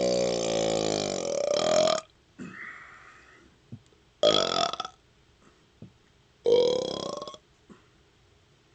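A man burping after chugging Pepsi, the gas from the soda coming up. A long burp rises in pitch and ends about two seconds in. Two shorter burps follow, one near the middle and one a little later.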